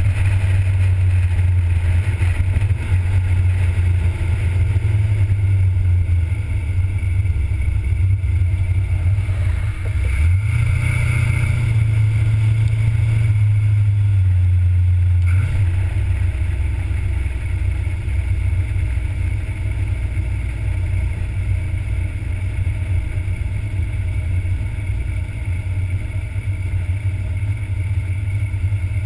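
1977 Corvette's 350 small-block V8 running steadily while driving on the road. The engine note drops briefly about ten seconds in, pulls harder for a few seconds, then eases off sharply about fifteen seconds in.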